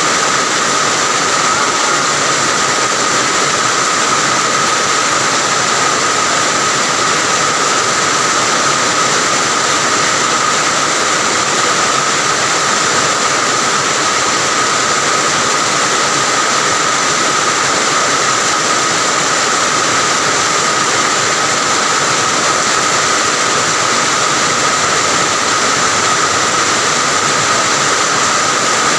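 Heavy rain falling steadily, an even, unbroken hiss, with a steady high tone running through it.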